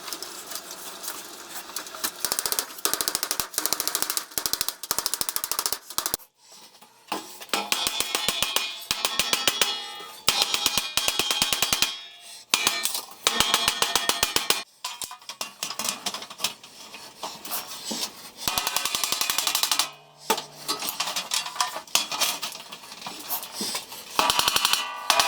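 Homemade belt grinder running in spells, with a fast, even clicking that stops and starts several times.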